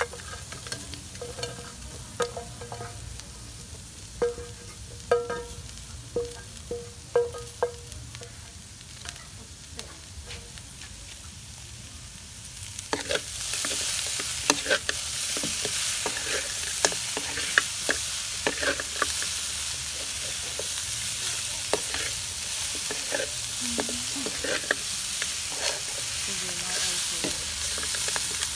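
A metal spatula clinks and scrapes against a steel wok as chicken is stirred into fried lemongrass. About halfway through, a loud, steady sizzle starts as the chicken fries, with the spatula scraping and tapping on through it.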